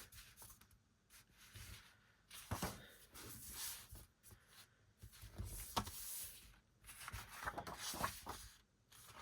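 Pages of an album's lyric book being turned and handled: soft paper rustling in several separate short spells, with small taps in between.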